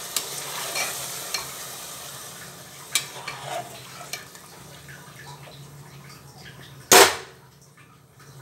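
Steel slotted spoon stirring watery rajma curry in a hot pan just after a glass of water went in: a hiss of sizzling that fades, with several sharp clinks of the spoon against the pan and one loud clank about seven seconds in.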